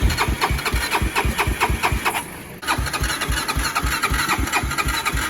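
Single-cylinder engine of a Honda 400EX quad, bored out to 440, cranking on its electric starter with jumper cables, turning over in an even chug of about five strokes a second without catching. It stops for about half a second a little over two seconds in, then cranks again. The battery is dead.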